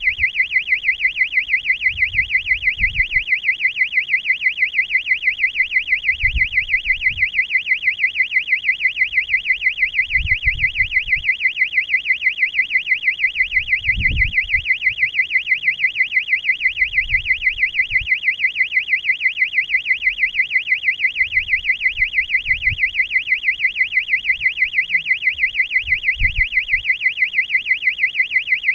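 High-pitched electronic alarm buzzer on the balloon payload, sounding a steady warbling tone that pulses several times a second without a break. Faint low rumbles come and go beneath it.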